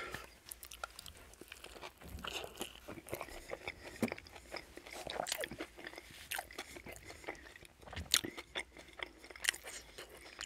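Close-miked chewing of a chicken ranch wrap: irregular wet mouth clicks and soft crunches.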